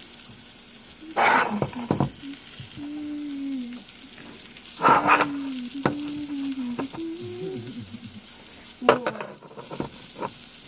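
Food sizzling in a hot pan, with a few louder scrapes and knocks of a utensil against the pan about one, five and nine seconds in.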